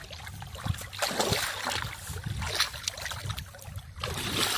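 Hands sloshing and splashing through shallow muddy water while groping in the mud for fish, in repeated irregular splashes.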